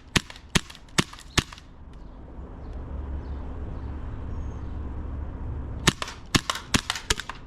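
Gas blowback airsoft pistol (WE Galaxy 1911) firing single shots: four sharp snaps about half a second apart, then after a pause a quicker string of about six more. A low rumble fills the pause. The shooter suspects poor gas consumption or a gas leak.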